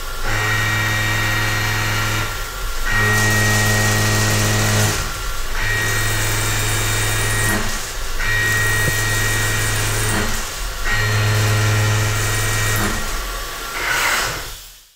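Seco High Feed 6 indexable milling cutter plunge milling steel at 1275 rpm: five cuts of about two seconds each with short breaks between, each a steady low hum with a thin high tone over it.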